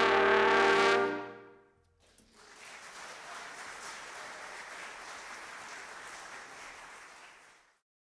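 Jazz big band's brass and saxophone sections holding a loud final chord, which is cut off about a second in. About two seconds in, audience applause starts and carries on at a lower level until it stops abruptly near the end.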